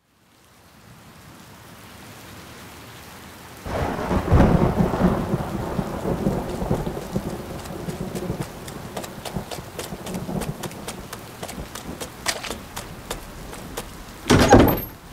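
Rain fading in, then a rumble of thunder starting about four seconds in that slowly dies away, with the rain hissing on and scattered drips ticking after it. Near the end a single loud thump cuts through.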